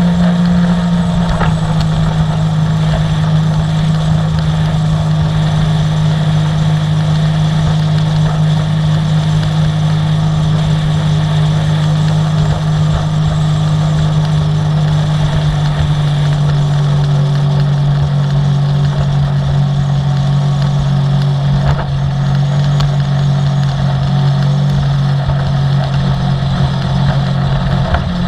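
Sea-Doo personal watercraft's engine running steadily under way, a loud even drone whose pitch drops a little about halfway through.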